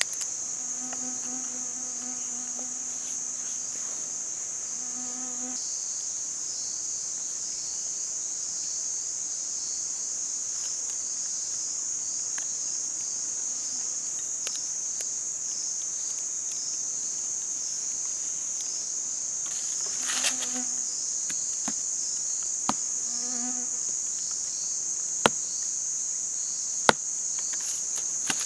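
Steady high-pitched insect chorus, with a flying insect buzzing close by for the first few seconds and twice more briefly later on. A few sharp clicks near the end.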